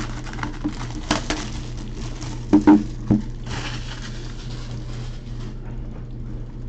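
Plastic shrink wrap being torn and crinkled off a cardboard trading-card box, with a few sharp knocks as the box is handled and set down on a table, the loudest about two and a half seconds in. A steady low hum runs underneath.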